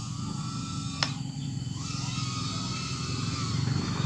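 Micro FPV drone's motors whining in flight, their pitch sliding up and down with the throttle, over a steady low rumble. There is a sharp click about a second in.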